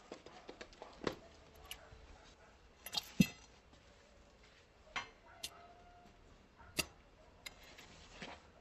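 Scattered knocks and clinks of hand-tool work, irregular, with one sharp loud knock about three seconds in and smaller ones near one, five and seven seconds.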